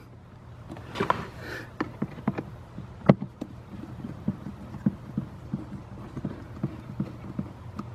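Phillips screwdriver turned by hand, driving a screw into the plastic HVAC housing: a run of small, irregular clicks and ticks, a few each second.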